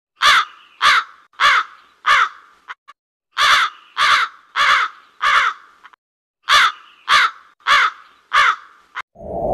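Crow cawing: three runs of four caws each, the caws in each run about half a second apart, with short pauses between runs.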